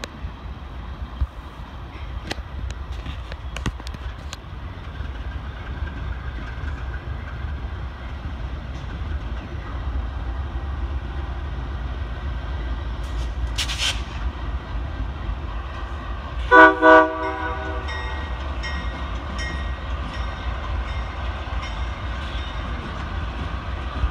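Diesel freight locomotives passing with a steady low engine rumble; about two-thirds of the way through a locomotive air horn sounds two short chord blasts, the loudest sound here.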